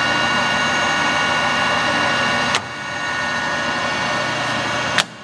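Clausing 600 Series gear-head lathe running at 730 RPM with the carriage under power feed: a steady gear-driven whine made of many tones. A sharp click about two and a half seconds in is followed by a drop in level, and a louder click near the end brings another drop.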